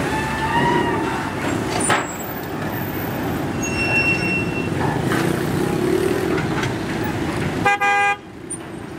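Steady outdoor din with a single short, fairly high-pitched horn toot lasting about half a second near the end.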